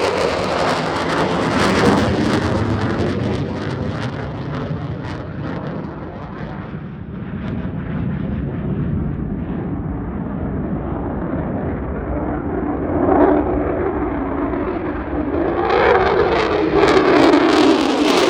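Military fighter jet's engine roar on departure, loud and crackling with a deep rumble; it eases off in the middle and swells again near the end.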